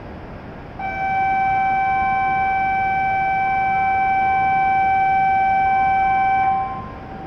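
Steady electronic warning buzzer at the shinkansen platform sounding one unbroken tone for about six seconds as the platform gates and the train's doors close before departure.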